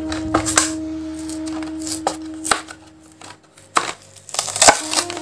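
Clear plastic blister of a die-cast toy car pack being pried and torn off its cardboard card: a run of crunchy cracks and crinkles, the sharpest near the end.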